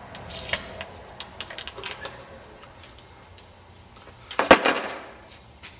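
Light metallic clicks and taps as a beer can is handled, then about four and a half seconds in a sharp crack with a short fizzing hiss as the can is broken open for shotgunning.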